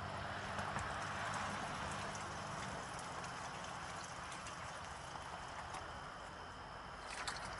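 Bleach poured from a plastic jug into the open well casing, splashing and trickling down the pipe as the well is chlorinated. The pour is heaviest in the first few seconds, and a few sharp clicks come about seven seconds in.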